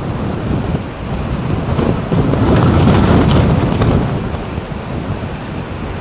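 Strong gusty wind rushing through bare trees and buffeting the microphone with a low rumble. A stronger gust builds about two seconds in and eases off again about four seconds in.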